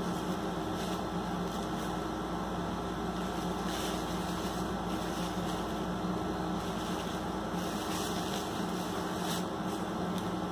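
Tissue paper rustling and crinkling softly now and then as it is unwrapped by hand, over a steady low machine hum and hiss.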